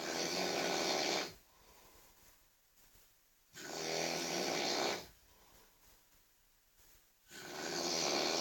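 A sleeping person snoring very loudly, one long snore about every three and a half to four seconds with quiet pauses between: one snore ends about a second in, a full one falls in the middle, and another starts near the end.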